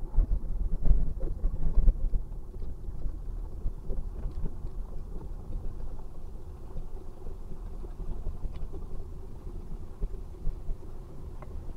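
Low, steady rumble inside a Toyota Vellfire's cabin as it creeps through slow traffic, with a few louder bumps in the first two seconds.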